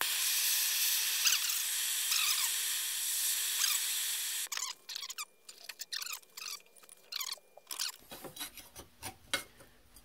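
Large-burner propane hand torch burning with a loud, steady hiss for about four and a half seconds, then cutting off suddenly. After that come scattered light clicks and scrapes as a gloved hand works the steel strip in a bench vise.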